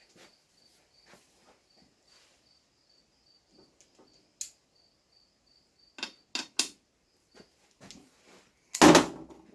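Metal transmission parts clinking and clicking as they are handled and worked loose: a few light clicks, three quick sharp clicks about six seconds in, and one loud metallic clank with a short ring near the end. A faint steady cricket-like chirping runs underneath.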